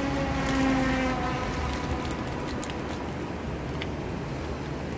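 A motor engine humming in the background, its pitch falling slightly before it fades about a second in, then a steady low rumble with a few faint clicks.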